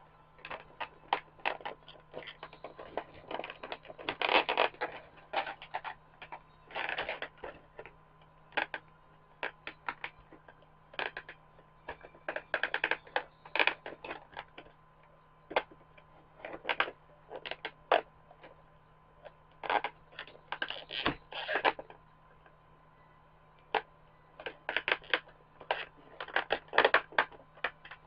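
Hands working a toy figure free of its plastic packaging and twist ties: irregular clicks, crinkles and rustles in short clusters, over a faint steady hum.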